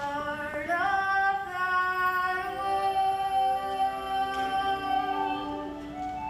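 A solo female voice singing slow, long-held notes over musical accompaniment in a stage musical, with one note sliding up near the start.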